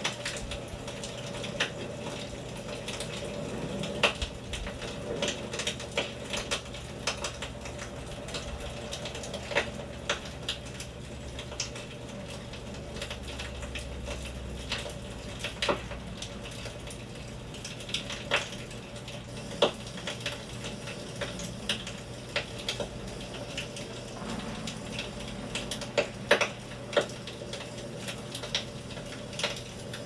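Small wood campfire crackling, with irregular sharp pops and snaps every second or two over a steady faint hum.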